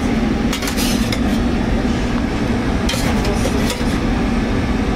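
Metal clinks of a spoon against a sheet pan and a skillet as butter cubes are dropped in to melt, a few light knocks about a second in and again near three seconds. A steady low hum runs underneath.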